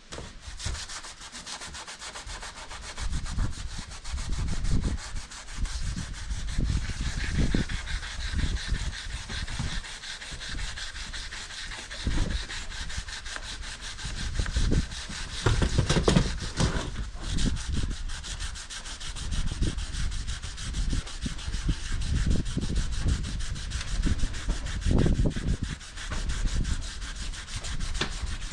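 Sandpaper being rubbed by hand over body filler on a truck's bodywork: rough, uneven sanding strokes with occasional low bumps.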